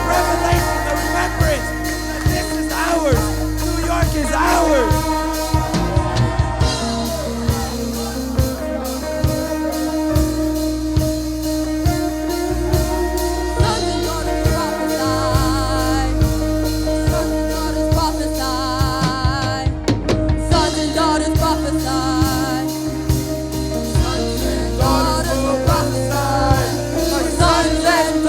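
Worship band music with drum kit, guitar and wordless or unclear singing, playing steadily with a regular beat.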